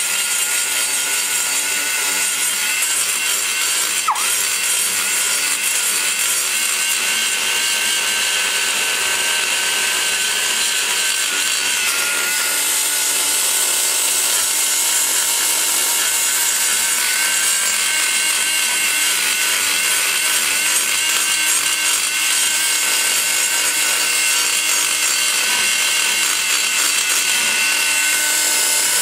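Die grinder spinning an egg-shaped carbide burr under load, cutting and rounding the valve guide boss inside an aluminium cylinder-head port. It gives a steady high whine over a gritty hiss, and the pitch dips briefly about four seconds in as the burr bites.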